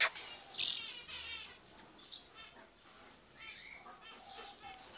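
Small songbirds chirping in short, quick trilled phrases. There is a sharp click right at the start and a loud, brief hiss-like burst about half a second in.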